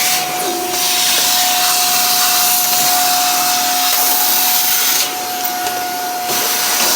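Vacuum cleaner running with a steady airflow rush and a steady whine; the rush thins out briefly near the start and again for about a second around five seconds in.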